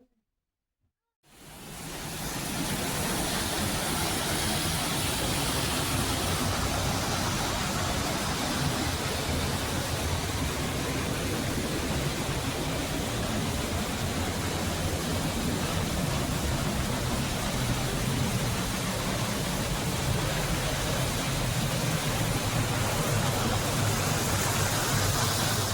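Waterfall pouring, a steady, full rushing noise with no rhythm. It fades in about a second in and stops abruptly at the end.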